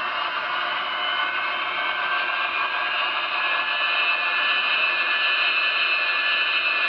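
Sound system of an MTH HO Union Pacific 'Veranda' gas-turbine locomotive model playing its turbine sound: a steady high whine over a hissing rush, growing a little louder about halfway through.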